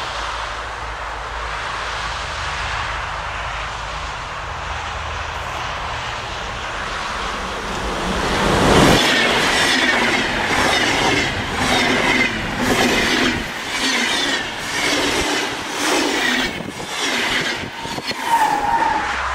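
SBB passenger train of double-deck coaches with a red Re 460 electric locomotive passing at speed. A rumble grows as it approaches and peaks about nine seconds in, then the wheels clatter in a quick rhythm as the coaches run by. A brief high tone sounds near the end as the locomotive passes.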